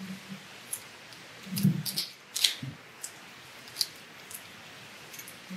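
Vinyl electrical tape being pulled off its roll and wrapped around a wire joint by gloved hands: scattered short crackles and clicks, busiest and loudest about two seconds in.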